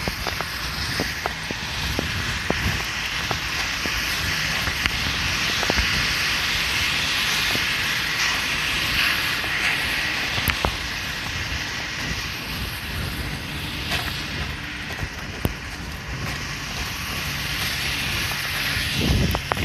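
A steady rushing noise that swells for several seconds in the middle and then eases off, with a faint low hum later on and scattered light knocks.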